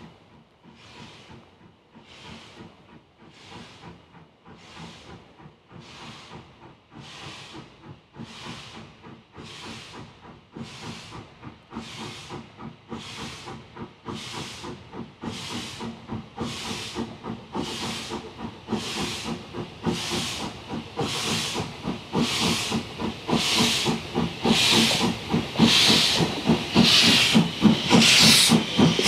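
Kitson-built steam tank locomotive working under steam, its exhaust beating evenly at a little more than one chuff a second. The beats grow steadily louder as the engine approaches.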